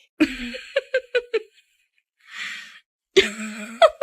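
A person laughing: a breathy outburst, then a quick run of about four short 'ha' pulses, with more breathy laughter later.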